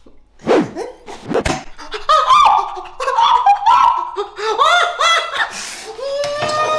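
Someone laughing hard in quick repeated bursts, after two sharp outbursts in the first second and a half.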